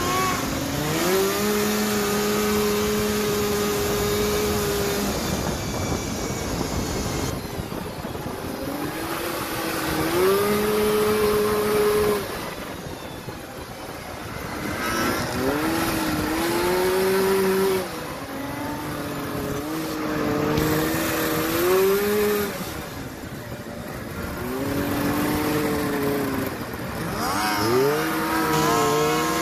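Off-road cross-kart engines revving up, holding a steady high pitch, then backing off, over and over, with the rush of driving on a dirt trail.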